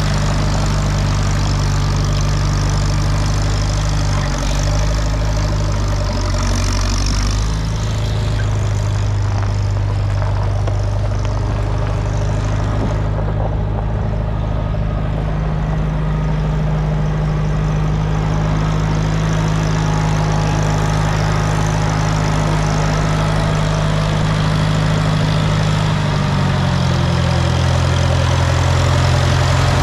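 Engine of an Allis-Chalmers Model D road grader running steadily, its speed shifting slightly a few seconds in and again near the end.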